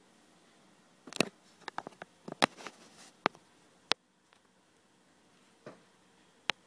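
Sharp plastic clicks and taps as a white iPod Shuffle dock, with the player seated in it and its cable coiled around the base, is handled and turned in the hand. A quick cluster of clicks comes about a second in, then two single clicks near the end.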